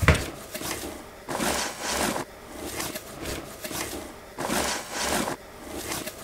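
Cardboard boxes of fireworks batteries being pushed and slid against each other by hand, in a few scraping strokes, each up to about a second long.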